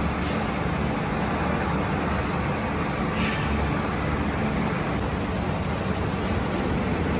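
Steady din of factory machinery running, with a low hum underneath and one brief hiss about three seconds in.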